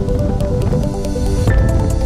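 Background music with a steady beat and held melodic notes; the melody changes about one and a half seconds in.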